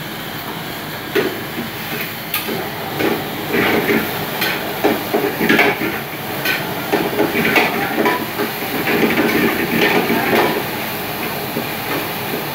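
Steady rushing hiss of a high-flame gas wok burner, with a metal ladle repeatedly clattering and scraping against the wok as food is stir-fried.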